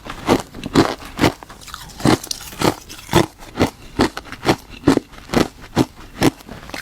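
Ice being bitten and chewed close to the microphone: sharp, crisp crunches in an even rhythm of about two a second.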